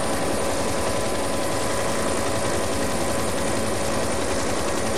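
Helicopter running steadily, heard from inside the cabin: a rapid rotor beat under a steady turbine whine.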